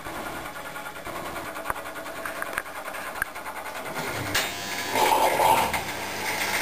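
Predom Polar Westa-85 front-loading washing machine running its bio wash programme: a steady mechanical hum with faint scattered clicks that grows louder about four seconds in, as the drum sets the laundry tumbling.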